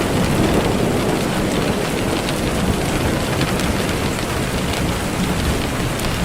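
Steady heavy rain, a dense hiss with many small drop ticks, over a deep low rumble of distant thunder that is strongest in the first second and then eases.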